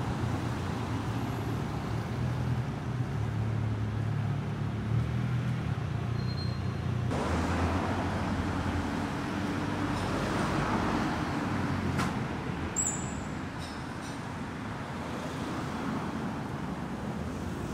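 Road traffic: cars driving past close by, engine hum and tyre noise swelling and fading. The sound changes abruptly about seven seconds in, and a short sharp click is heard about twelve seconds in.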